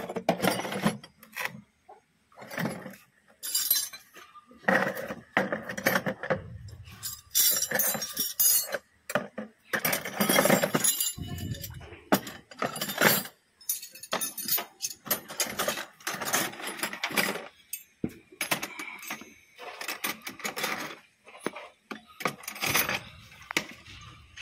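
Irregular metallic clinks and clatter of hand tools and brass valve parts being handled, as the valves are taken out of a pressure-washer plunger pump head.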